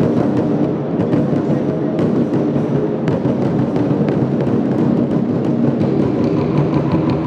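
Three large Chinese barrel drums beaten with sticks, played together in a dense, unbroken rhythm.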